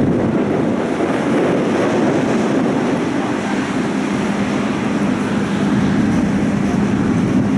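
Tram rolling along street track, heard from aboard: a steady rumble of wheels on rail and running gear, with a steady low hum that grows clearer in the second half.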